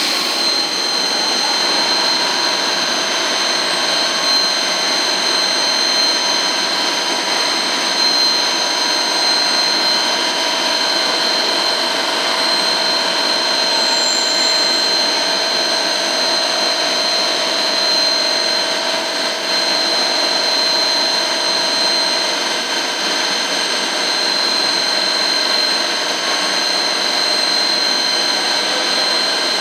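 Biglia B470 YMS Quattro CNC lathe running: a steady mechanical hiss with several constant high-pitched whining tones.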